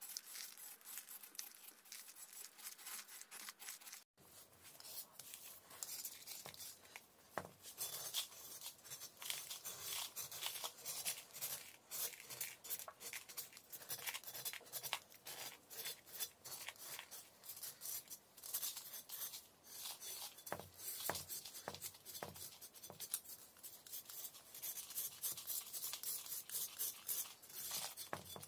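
Knife blade scraping the surface of a large block of natural chalk in many quick rasping strokes, shaving off the powdery outer crust. A brief gap about four seconds in.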